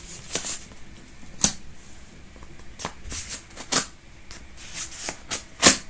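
Scissors snipping open a paper envelope, with the paper crinkling as it is handled: a string of short, sharp, irregular snips and crackles, the loudest one near the end.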